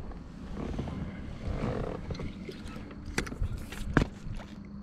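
Wind buffeting the microphone in a low, uneven rumble, with a few sharp knocks about three and four seconds in.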